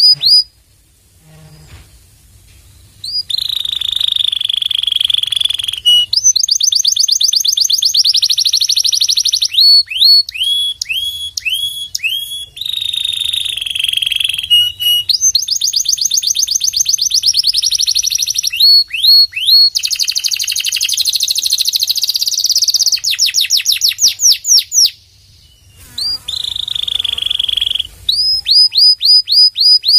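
Domestic canary singing a long, loud song. It is built of rapid trills, buzzy rolls and fast runs of repeated high notes that sweep downward, with a pause about a second in and a shorter one near the end.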